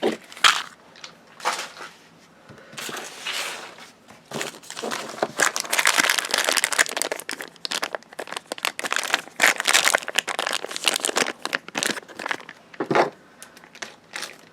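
Plastic wrapping on a small LOL Surprise toy package crinkling and crackling as it is handled and torn open, sparse at first, then busy and near-continuous for the second half.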